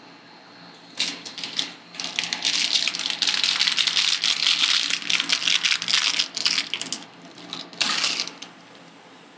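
Metal spatulas scraping and clacking on the steel cold plate of a rolled-ice-cream maker. A burst of rapid taps comes about a second in, then several seconds of dense scraping and tapping, and a last short burst near the end.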